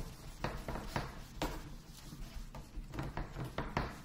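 A small whiteboard being handled: a series of light knocks and scrapes, about seven spread over a few seconds.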